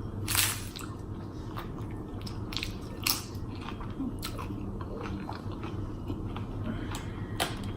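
Close-miked biting and chewing of loaded nachos: a crunch of tortilla chips about half a second in, then steady chewing with scattered crunches.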